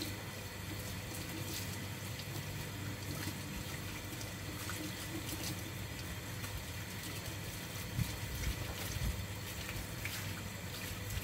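Steady running and splashing water as a small dog is washed, with a few soft knocks about eight to nine seconds in.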